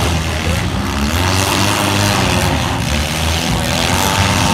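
Several four-cylinder demolition derby cars running together in the pit, a steady mix of engine noise with some rising and falling revs.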